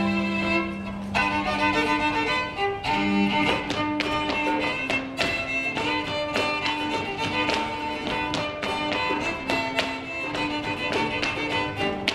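Fiddle playing a folk tune, starting on long held notes and moving into a quicker passage. Sharp percussive taps run through most of it, from about a second in.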